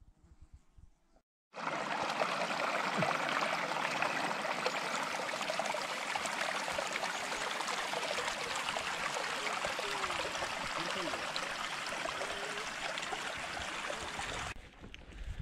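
A small, shallow mountain brook rushing and rippling over a stony bed, recorded close at water level: a steady, even rush of water that starts suddenly about a second and a half in and cuts off near the end.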